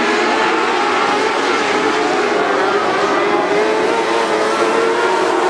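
Several dwarf race cars running together, their motorcycle engines making a steady, dense engine sound whose pitches waver slightly up and down as the cars circle the track.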